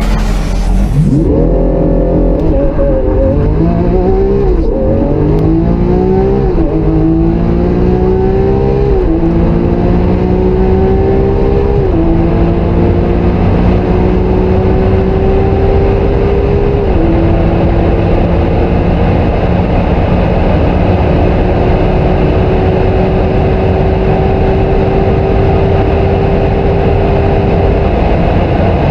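Supercar engine accelerating hard through the gears. Its pitch climbs and drops sharply at each upshift, about six times, each gear lasting longer than the last, then rises slowly at high speed.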